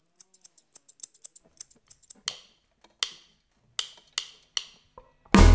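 Scissors snipping in quick light clicks, then five sharper strikes that ring briefly. About five seconds in, a rock band comes in loudly with drums, bass and guitar.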